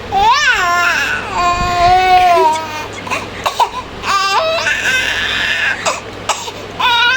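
Eight-month-old baby crying in a high voice. A quick rising-and-falling wail runs into a long held cry, followed by shorter broken cries with a few short sharp sounds between them, and a new cry starts near the end.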